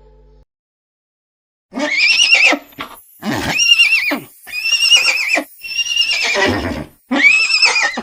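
Horse whinnying: five loud whinnies in quick succession, each with a quavering, wavering pitch, beginning after a second of silence.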